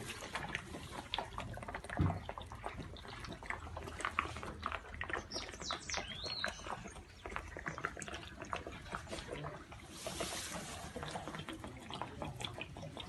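African elephant calf sucking milk from a large feeding bottle: a continuous run of wet slurps and smacking clicks, with a low thump about two seconds in.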